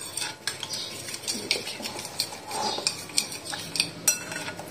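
Metal spoon stirring a wet spice marinade in a glass bowl, with irregular clinks and scrapes of the spoon against the glass.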